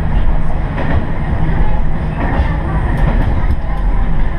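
Diesel railcar running along the line, heard from on board: a steady low rumble of engine and wheels on rail, with a few faint knocks from the wheels.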